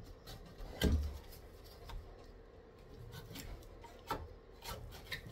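Knife cutting and scraping through a deer front shoulder on a plastic cutting board, with meat shifted and pressed on the board: scattered short scrapes and knocks, the loudest a thud about a second in.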